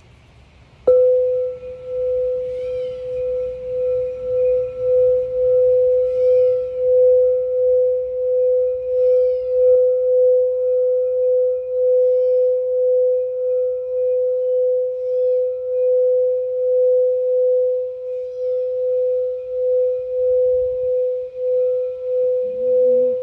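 A singing bowl struck once about a second in, then ringing with a single steady tone that pulses slowly in loudness. A bird gives short chirps about every three seconds over it.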